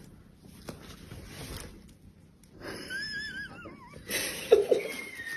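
A cat's wavering, wheezy whine that wobbles and falls in pitch about halfway through, with breathy noises around it.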